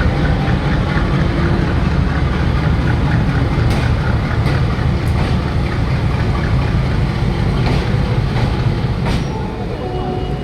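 Train running through a station: a loud, steady rumble of coaches and wheels on the track, with a few sharp clicks of the wheels over rail joints.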